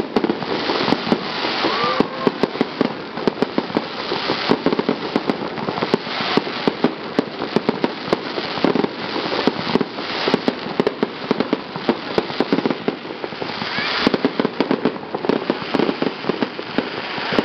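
Aerial fireworks bursting, with a continuous crackle of many rapid pops.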